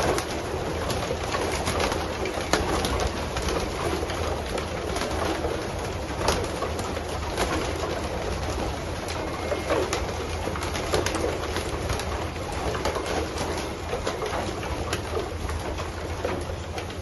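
A loftful of racing pigeons cooing together in a dense, continuous chorus, with many short sharp clicks and flutters throughout.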